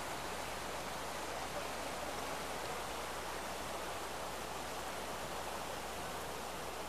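Flood-swollen river rushing over rocks: a steady, even noise of running water.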